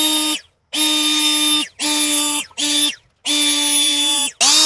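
Cordless mini turbo blower whining at a steady high pitch, its motor started and cut off about six times in quick bursts of half a second to a second each.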